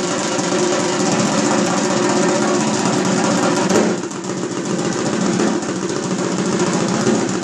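Hand drum played with the fingers in a fast, continuous stream of strokes. The pattern changes and lightens about four seconds in.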